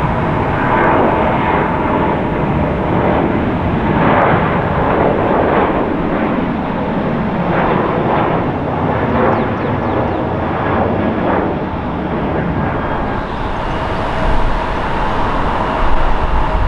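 Boeing 737 twin-jet airliner's engines at takeoff thrust: a steady jet roar with a high engine whine as it rolls and climbs away. Near the end a louder, deeper rumble takes over.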